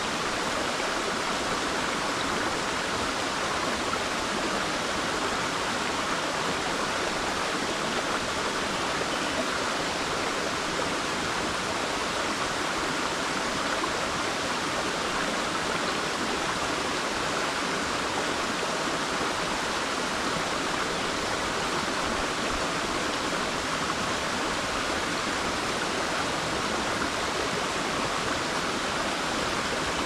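Mountain river flowing, a steady, even rush of water.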